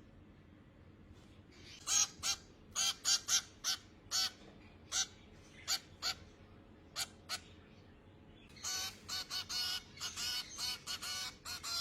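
Finch chick giving short, harsh begging calls, scattered at first and then in a rapid, almost continuous string near the end.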